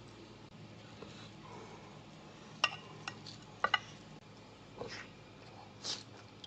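A knife clinking sharply against a plate while cutting roast lamb leg: one clink around the middle, then two close together about a second later. Softer eating noises follow near the end as he bites into the meat.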